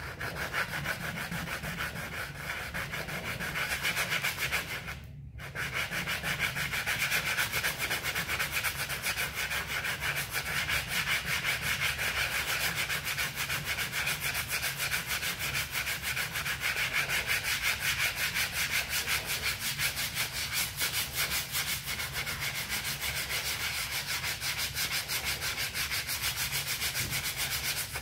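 Coarse 80-grit sandpaper rubbed by hand over a truck canopy's surface in quick, even back-and-forth strokes, rasping steadily with a short break about five seconds in. This is rough sanding to take out deep scratches before body filler.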